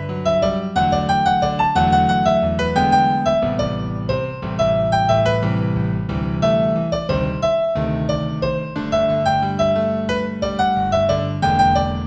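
Piano music in G major at a moderate tempo: a melody of single struck notes over held low chords.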